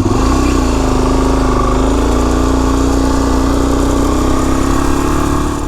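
Suzuki DR-Z400S single-cylinder four-stroke engine running loud and steady under way, its pitch dipping slightly about a second in and then holding level.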